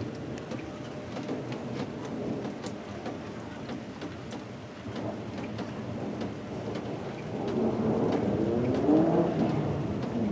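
Steady rain falling, with individual drops ticking close by, and a rumble of thunder that swells louder about three-quarters of the way through.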